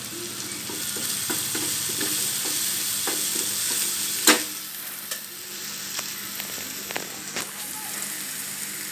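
Chopped onion, tomato, garlic and green chillies sizzling steadily in hot oil in a pan as a wooden spoon stirs them, with scattered light scraping clicks and one sharp knock about four seconds in.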